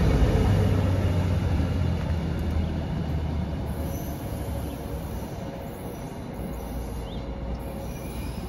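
River LINE Stadler GTW diesel light rail train pulling away: its low engine drone and rolling noise on the track fade steadily as it recedes.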